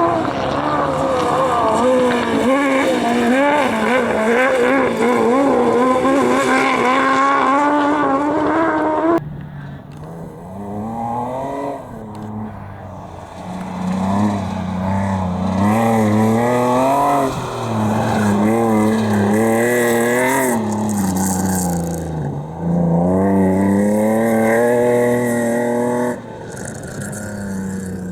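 Competition vehicle engines running hard on a dirt slalom course. First one is held at high revs with the pitch wavering under the throttle, then a sudden switch to another that revs up and falls back again and again as the throttle is worked and lifted.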